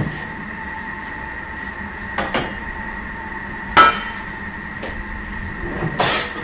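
A few sharp knocks and clatters of kitchen bowls and containers being handled, the loudest nearly four seconds in. Under them runs a steady hum from a Thermomix TM6 cooking on low speed.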